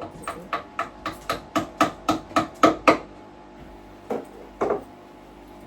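A run of about a dozen quick hammer blows, roughly four a second and growing louder, then a pause and two more single blows.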